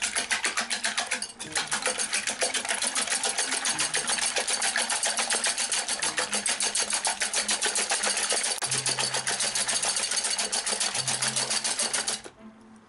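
Wire balloon whisk beating eggs in a glass bowl, its wires clicking against the glass in a fast, even rhythm that stops suddenly near the end.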